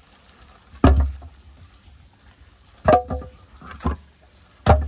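Split firewood pieces dropped into a tandoor, landing on the ash bed and on one another with wooden knocks, about four times, the first and last the loudest.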